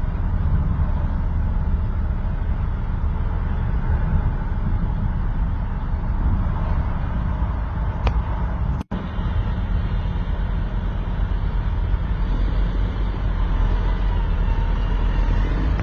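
Diesel engine of a tracked excavator running steadily as the machine works, a continuous low rumble. The sound cuts out for a split second about nine seconds in.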